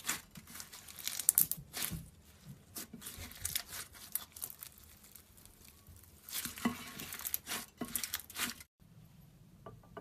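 Crunchy slime squeezed and pressed by hand, giving dense bursts of crackling and popping. It stops abruptly near the end, leaving only a few faint clicks.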